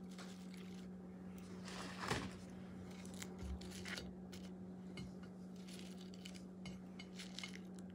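Faint handling sounds of fried plantain slices being set down and shifted on a ceramic plate: a few soft taps and ticks, one slightly louder about two seconds in, over a steady low hum.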